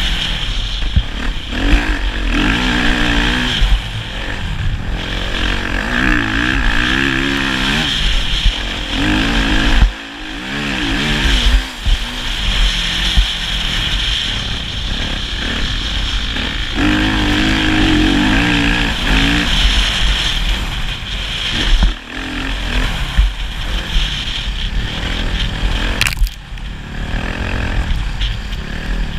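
Motocross motorcycle engine being ridden hard, its pitch rising and falling again and again as the rider opens and closes the throttle.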